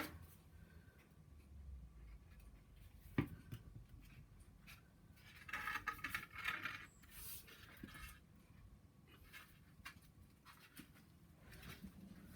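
Quiet handling of glued wooden frame pieces: a single sharp tap about three seconds in, then a short scraping rub of wood against wood and the bench around the middle, with scattered faint ticks.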